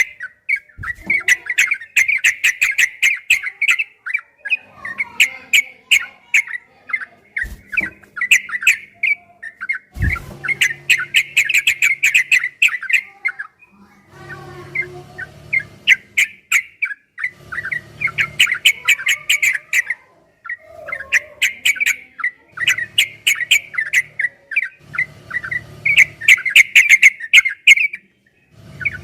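Yellow-vented bulbul (trucukan) singing in long, rapid bouts of chattering chirps. Each run lasts a few seconds, with brief pauses between.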